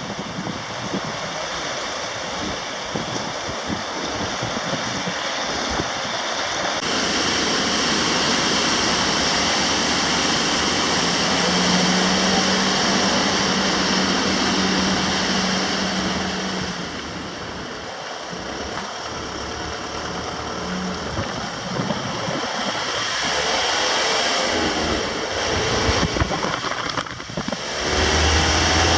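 Rushing river water in whitewater rapids: a steady noisy rush that changes abruptly about seven seconds in.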